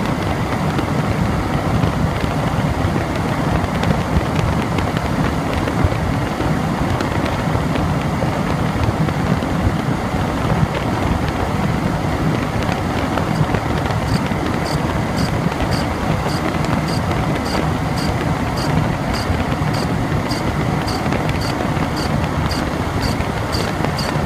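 Toyota 2TR-FE 2.7-litre four-cylinder engine running steadily with a rhythmic high squeak, about two chirps a second, that grows clear past the halfway point: a squeaking idler pulley on the accessory belt drive.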